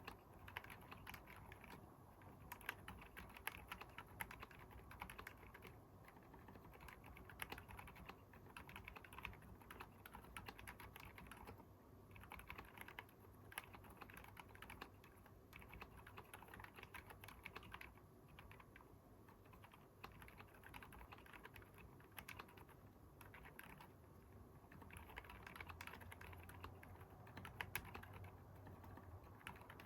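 Continuous typing on a Keychron K10 aluminium mechanical keyboard fitted with Haimu Sea Salt silent switches, giving faint, soft keystrokes. The keyboard is dampened with case foam and Poron plate foam.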